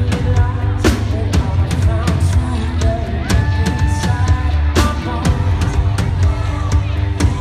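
Rock band playing live: a male lead singer over electric guitar and a drum kit, with a heavy, booming low end and regular drum hits.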